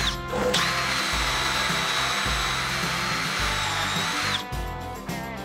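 Drill spinning a stepped pocket-hole bit into half-inch plywood in a Kreg K4 pocket-hole jig, a steady high whine with the sound of the bit cutting. It stops for a moment just after the start, runs again, and cuts off about four and a half seconds in. Background music with a steady beat plays underneath.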